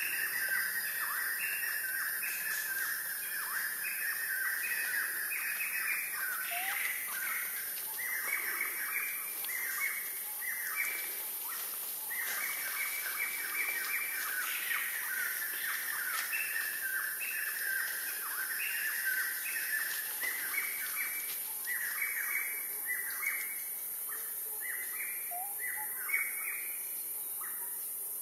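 Forest birds chirping in quick, repeated runs of short falling notes, several a second, over a steady high hiss.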